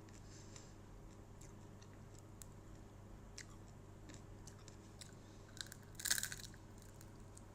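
Someone chewing a deep-fried grasshopper, with faint, scattered crunches and one louder burst of crunching about six seconds in.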